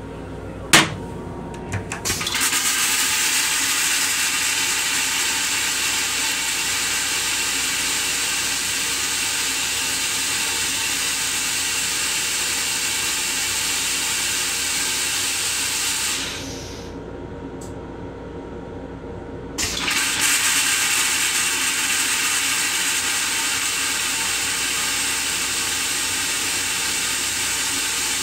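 A single sharp clack as the toilet seat drops onto the bowl. About two seconds later the Metro-North M7 railcar toilet flushes: a loud, steady rush of water and air that eases off for about three seconds partway through, then comes back at full strength.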